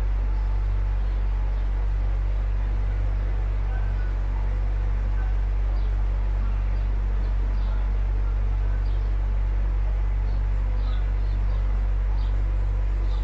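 Tourist boat's motor running with a steady low drone. Faint short high chirps sound over it from about the middle onward.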